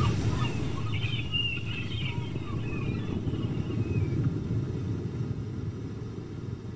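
A low steady rumble that slowly fades, with faint high chirping over it in the first three seconds.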